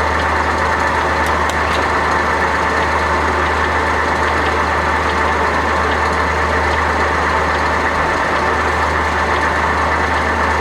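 LeBlond Regal engine lathe running steadily under power, with a constant low hum and a few faint ticks.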